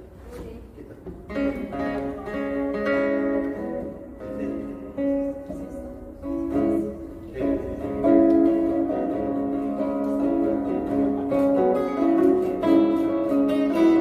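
Two acoustic guitars playing together, picked and strummed, getting louder about eight seconds in.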